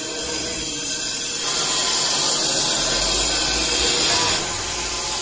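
Industrial overlock sewing machine running steadily while stitching fabric, louder for about three seconds in the middle.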